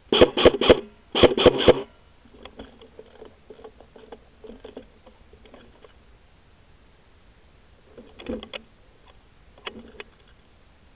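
Airsoft guns firing: two quick strings of about four sharp shots each in the first two seconds, then faint scattered clicks and two softer short strings near the end.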